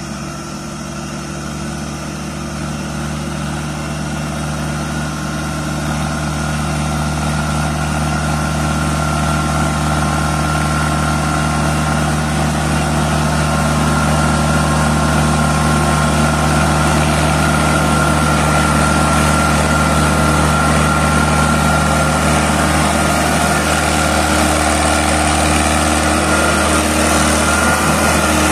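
Mahindra Arjun 555 DI tractor's four-cylinder diesel engine running steadily at about 2200 rpm in low second gear, hauling a loaded trolley. It grows louder over the first half as the tractor approaches, then holds steady.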